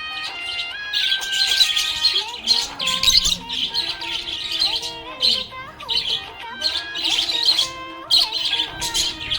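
Budgerigar chirping and warbling in repeated bright bursts, over a stepped instrumental melody.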